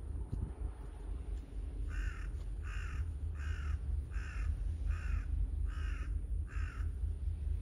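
A crow cawing seven times in an even series, about one harsh caw every three-quarters of a second, starting about two seconds in, over a steady low rumble.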